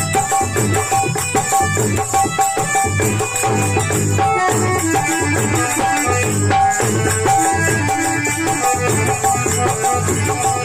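Instrumental folk devotional (bhajan) music: a steady drum beat under rattling, jingling hand percussion and repeating melodic notes.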